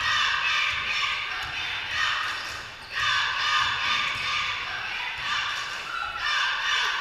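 Spectators shouting and cheering in a gym, in surges that rise near the start, about three seconds in, and again near the end. Under the voices a basketball is being dribbled on the hardwood court.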